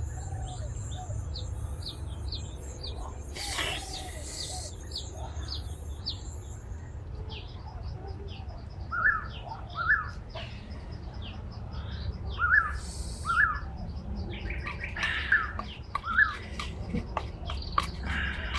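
Birds chirping and calling: a long run of short, high, repeated chirps, joined from about nine seconds in by louder calls that come in pairs several times. A high, steady whine stops about seven seconds in.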